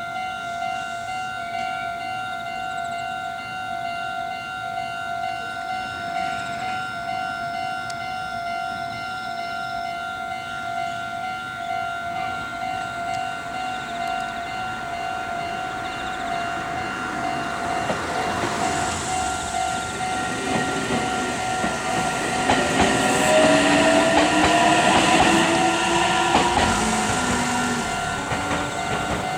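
Japanese level-crossing warning bell on the Meitetsu Takehana Line ringing in a steady repeating ding, while a train comes through the crossing from a little past halfway, loudest about two-thirds of the way in, with wheel clatter and a rising whine. The bell stops right at the end.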